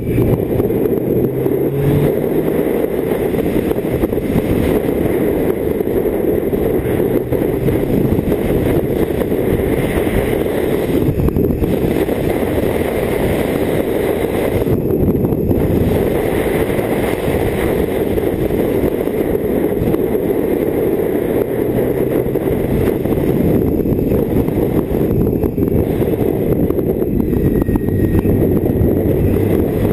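BMW K1600GT touring motorcycle being ridden at a steady road speed: wind rushing over the microphone, a steady low rumble, with the inline-six engine running underneath and its pitch rising briefly a few times.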